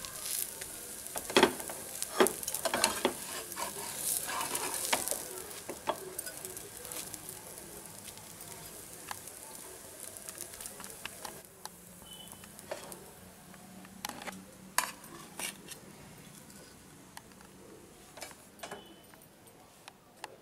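Oil sizzling under a masala dosa on a hot tawa, with a steel spatula scraping and knocking on the pan as the dosa is folded. The sizzle is loudest in the first few seconds and then dies down.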